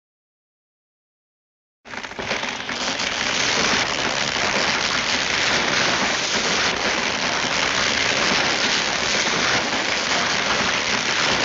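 Silence, then about two seconds in a dense, steady hiss like heavy rain starts suddenly, swells over a second and holds.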